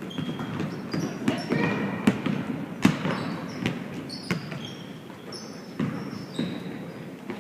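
Shoes squeaking and thumping on a hard gym court: short high squeaks mixed with sharp knocks, some in a rough rhythm less than a second apart, echoing in a large hall.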